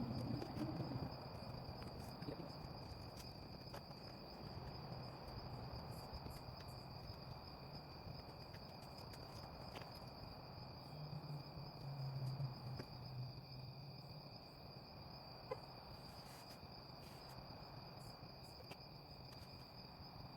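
Night insects, most likely crickets, trilling steadily in a single high unbroken tone, faint, over a low rumble, with a brief louder low patch about halfway through.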